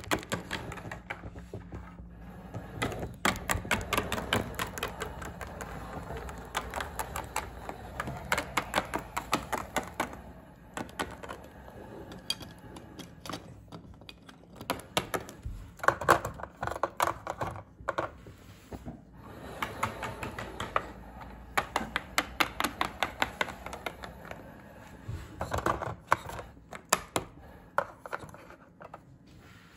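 Plastic toy pet figurines hopped along a wooden tabletop, making quick runs of sharp taps with short pauses between them.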